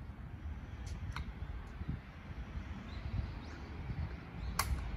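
Low rumble of wind on the microphone beside a standing electric commuter train, with a few sharp clicks, the loudest near the end.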